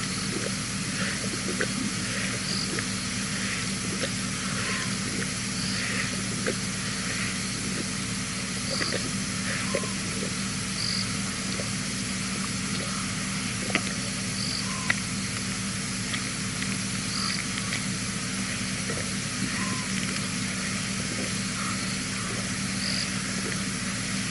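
Night chorus of frogs and insects over a steady hiss and low hum, with a short call repeating about every two seconds.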